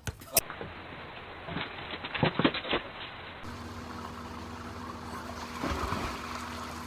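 A cluster of sharp knocks a couple of seconds in. After a cut, a steady low hum, and near the end a splash as a person jumps into a swimming pool.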